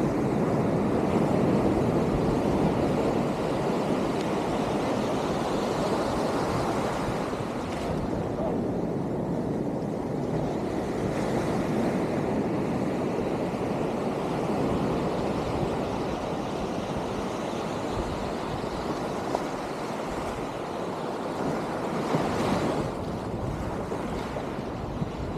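Ocean surf washing on the shore, with wind on the microphone. It is a little louder in the first few seconds, and a brighter wash comes in near the end.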